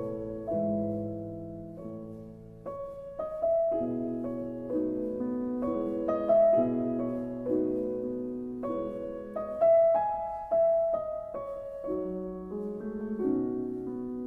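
Solo piano music at an unhurried pace, notes and chords struck about once a second and left to ring.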